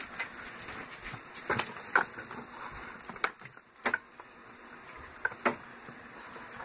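Food containers being handled at an open refrigerator: scattered sharp clicks and knocks, about half a dozen, spaced roughly a second apart, with faint rustling between them.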